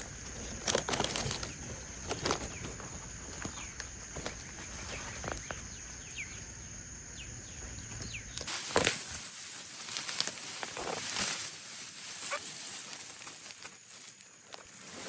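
Outdoor ambience: a steady, high-pitched insect drone with scattered rustling and knocks, the kind made by flapping or handling. The drone stops abruptly about eight seconds in, where the background changes to a different hiss and the rustling carries on.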